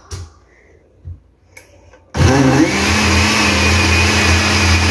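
A few light knocks, then about two seconds in an Oster countertop blender switches on, whines briefly up to speed and runs steadily and loudly, blending a thick ripe-plantain batter.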